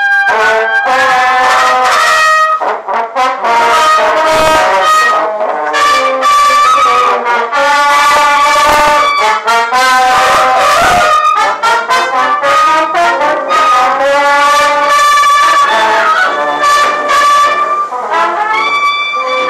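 French horns and a trumpet playing a tune together in several parts, a run of held brass notes with a flute among them.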